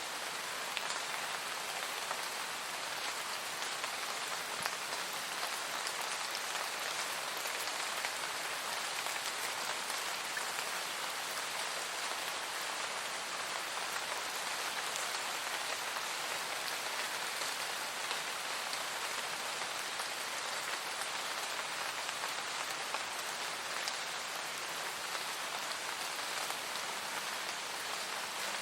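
Steady rain falling, an even hiss of drops with faint scattered patters and no letup.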